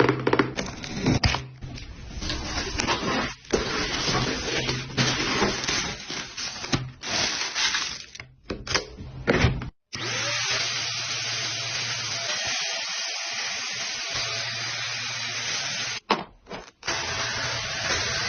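Gaabor cordless stick vacuum cleaner running. For the first half its motor is mixed with irregular rattling and clattering, with several brief breaks. From about halfway it runs as a steady hiss with a low hum, cuts out for a moment near the end and starts again.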